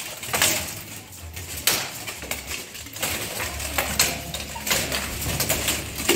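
Steel armour clanking and rattling as two armoured fighters grapple at close quarters, with about five sharp metal-on-metal knocks scattered through.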